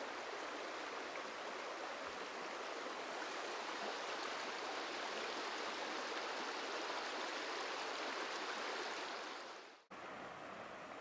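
Floodwater from an overflowing river rushing and churning across a flooded road: a steady, unbroken rush of water. It drops out for a moment just before the end and comes back fainter.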